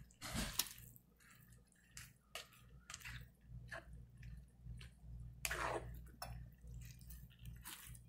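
A spatula stirring and scraping wet, steaming vegetables and noodles around a pan, in short irregular strokes over a faint steady low hum.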